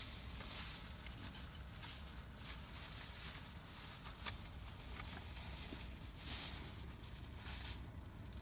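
Campfire crackling: a few faint pops and several brief hissing swells over a steady low rumble.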